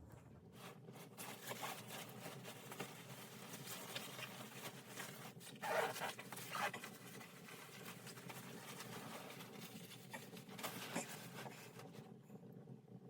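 Close rustling and scuffing handling noises, with a few louder scrapes about six seconds in and another near eleven seconds.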